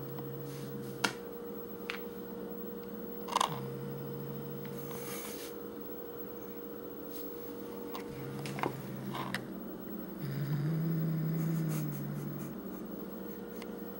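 Domestic cat growling low around a bird held in her mouth, in drawn-out growls of one to two seconds each, the loudest near the end: resource guarding of prey. A steady electrical hum runs underneath, with a few sharp clicks.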